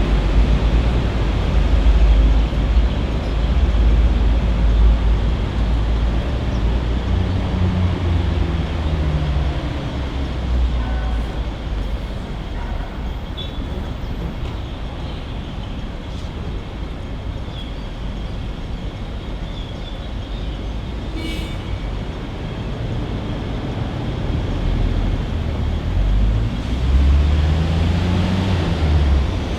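Road traffic passing: a low engine rumble from heavy vehicles that is loudest at the start, eases off in the middle and builds again near the end, with an engine's pitch gliding as vehicles pass.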